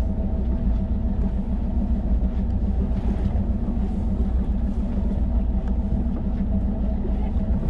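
Boat engine idling steadily: a constant low rumble with an even hum.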